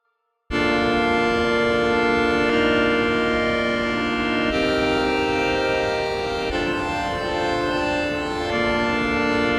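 A synthesizer pad from Ableton's Drift synth playing sustained, organ-like chords, changing chord about every two seconds. It comes in sharply about half a second in, after a brief silence.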